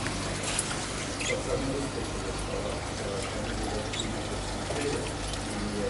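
Aquarium water trickling and splashing from the tanks' filters, over a steady low hum.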